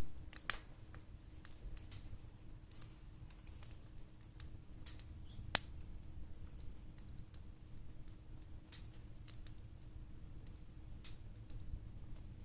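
Firewood crackling as it burns in a fire pit: irregular small snaps and ticks, with one sharper pop about five and a half seconds in.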